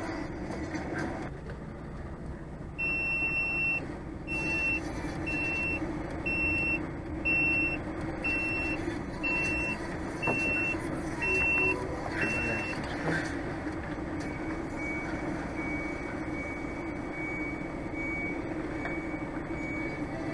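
A reversing alarm beeping about once a second, about ten beeps, over a truck engine running steadily; the beeps stop about two-thirds of the way through.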